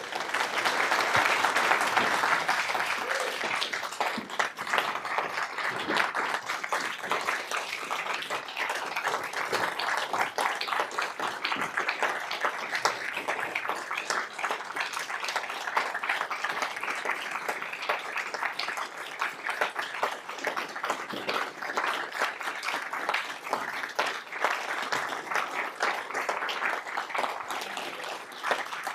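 A roomful of people applauding, loudest in the first few seconds and then a steady patter of clapping.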